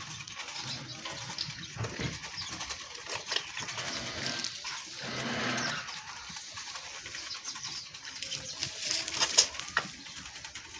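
Wet sucking and slurping of young livestock feeding, calves suckling at a goat's udder, with scattered small clicks and a brief louder rush about halfway through.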